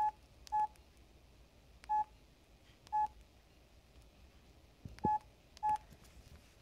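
Key beeps of a Samsung SCH-U320 flip phone as its keypad buttons are pressed: six short, identical beeps of one pitch, each with a faint click of the key. Two come close together near the start, two more spaced about a second apart, and another close pair near the end.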